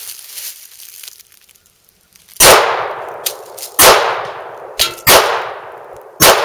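Four pistol shots from a Remington Rand 1911 .45 ACP, spaced about a second to a second and a half apart, each trailing off in a long echo. A fainter sharp crack falls between the second and third shots.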